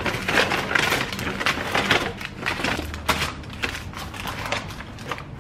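Plastic packaging crinkling and rustling as meal-kit ingredients are unpacked and set down on a countertop, with irregular light knocks.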